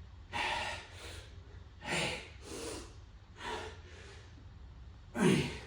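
A man breathing hard through a set of air squats: a run of sharp breaths in and out, about one every second, the loudest a heavy huff near the end.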